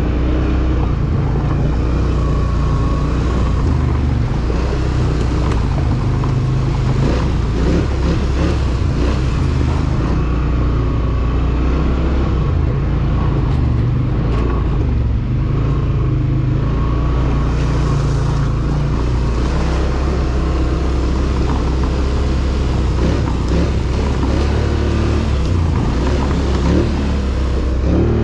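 ATV engine running steadily as the machine rides along, its pitch shifting a little with the throttle.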